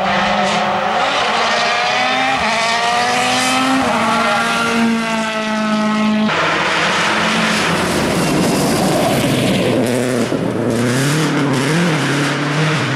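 Rally car engines at full throttle. In the first half an engine's revs climb steadily, with a gear change about four seconds in. After a sudden change a little past six seconds, another engine's revs rise and fall repeatedly as it is driven through the stage.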